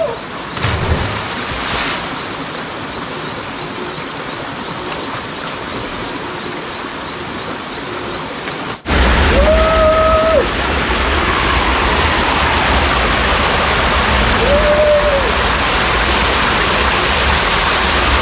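Steady rushing hiss of water from a small waterfall and stream. About nine seconds in it breaks off abruptly and comes back louder with a low rumble underneath, and two short whistled tones sound over it.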